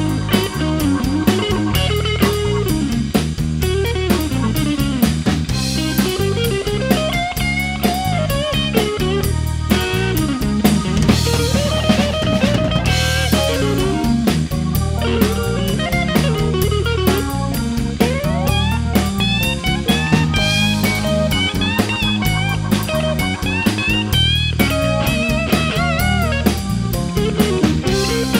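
Blues band playing an instrumental break: a lead electric guitar solo with many bent, sliding notes over a steady bass line and drum kit.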